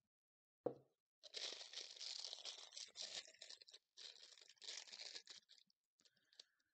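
A single knock, then a plastic piping bag crinkling and rustling as thick royal icing is scraped into it from a bowl with a spatula, with a short break about four seconds in.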